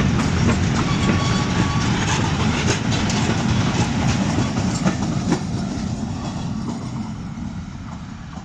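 Freight train of flat cars rolling past with a clickety-clack of wheels knocking over the rail joints. It fades steadily as the train moves away.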